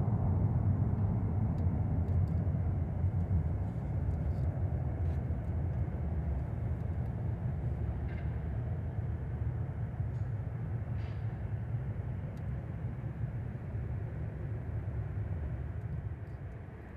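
Jet engine noise from a departing Boeing 737-800, its CFM56-7B turbofans running at take-off power: a low rumble that slowly fades as the aircraft climbs away, dropping off further just before the end.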